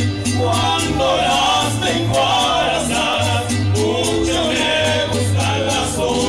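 Mariachi band playing a son with singing: a deep bass line in long held notes under a steady strummed rhythm, with melody lines on top.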